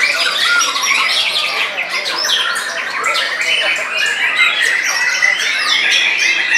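Several white-rumped shamas singing at once: a dense, continuous mix of overlapping whistles, trills and harsh chatter with no pauses.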